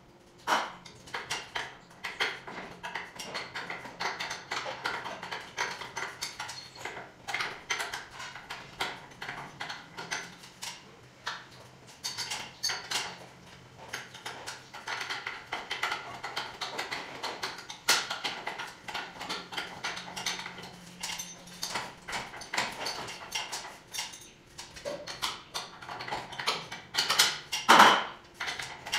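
Irregular metallic clinks, clanks and knocks of tools and hardware being handled during garage door spring work, with one louder clank near the end.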